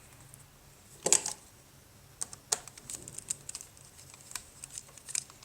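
A screw being loosened on the hard-drive cover of an IBM ThinkPad R31 laptop. There is one louder scraping click about a second in, then a run of short, light clicks and ticks.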